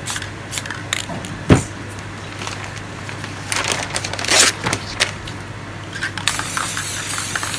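Aerosol spray paint cans hissing in short bursts, then a longer steady spray near the end. A sharp knock comes about a second and a half in, with small clicks and taps of cans being handled.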